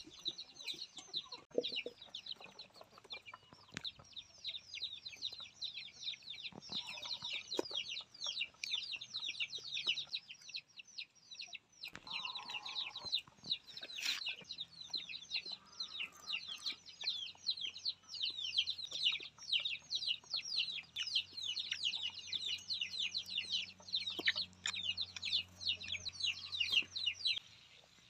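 Chicks peeping without pause: a dense chorus of quick, high, falling peeps.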